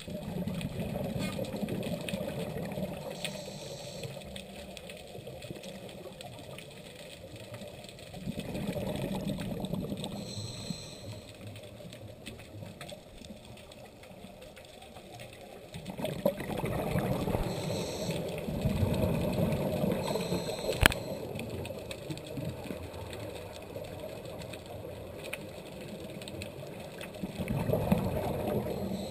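Scuba diver breathing through a regulator underwater: rushing bursts of exhaled bubbles come every several seconds in slow, irregular surges. A single sharp click sounds about two-thirds of the way through.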